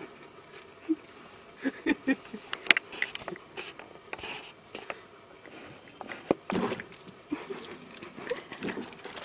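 A cat pawing at water in a plastic bucket: irregular small splashes and drips, loudest about two and a half seconds in and again past the middle.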